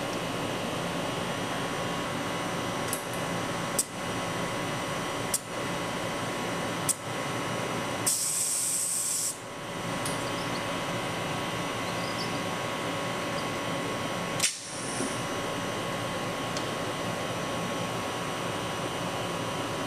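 Laser welding workstation running with a steady hum. Several sharp clicks come in the first seven seconds, a high hiss lasting about a second starts about eight seconds in, and a loud click about fourteen seconds in is followed by a brief hiss.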